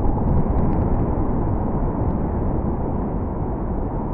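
Deep, steady rumble after explosive demolition charges have gone off under a steel power-station structure, fading slowly as the building begins to topple, with a few faint sharp cracks in the first second.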